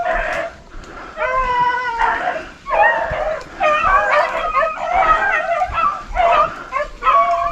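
A pack of rabbit dogs baying on a rabbit's trail, several voices overlapping in a steady chorus of drawn-out bawls and shorter chops: the dogs are running a jumped rabbit.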